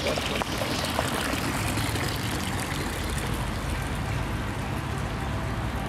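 Water pouring from a fountain spout into a basin, a steady splashing trickle.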